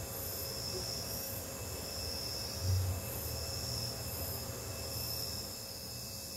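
Regular high-pitched chirps, about one a second, over a steady low hum, with a soft low thud about two and a half seconds in.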